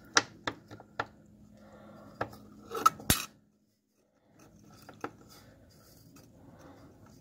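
Pliers clicking and clinking against the metal retaining clips of a parking brake cable. Several sharp metallic clicks come in the first three seconds, and one fainter click about five seconds in.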